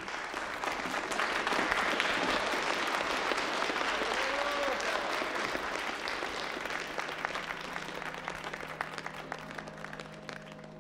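An audience applauding. The clapping swells within the first couple of seconds, then slowly dies away.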